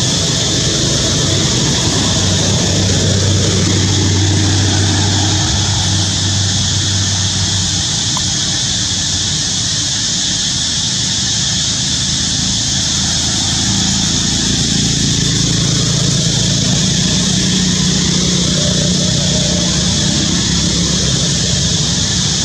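Steady outdoor drone: a low engine hum that swells a few seconds in and again near the end, under a constant high, even buzz.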